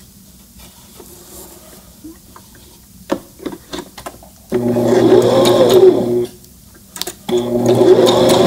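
Brother ST371HD sewing machine stitching a straight stitch through two layers of knit fabric, in two short runs: one starting about halfway in and lasting about two seconds, and a second starting near the end. A few light clicks of handling come before the first run.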